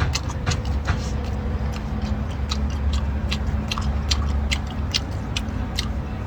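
Mouth sounds of a man chewing a piece of abalone: a run of sharp, irregular clicks and smacks, about two or three a second, over a steady low rumble.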